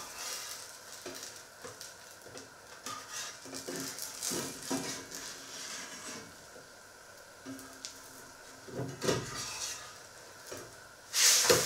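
A pancake sizzling in a frying pan while a metal knife blade scrapes and taps against the pan to lift and turn it. There are several short clinks along the way and one loud metal clang near the end.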